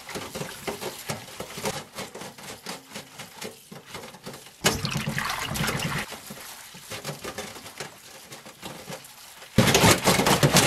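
Tap water running into a stainless steel bowl of garlic chives while gloved hands swish and rub them in the water, washing soil off the roots. About a second before the end the water gets much louder, as if the tap is opened up and pours harder into the bowl.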